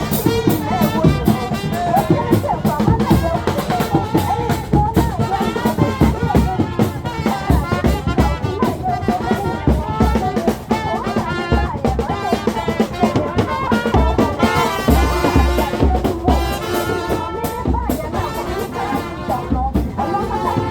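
Brass band music with drums: horns playing over a busy, steady drum beat.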